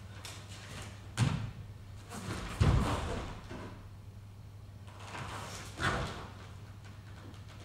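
Heavy thuds of dancers' feet landing and stamping on a stage floor, three of them: about a second in, near three seconds, and near six seconds, over a steady low hum.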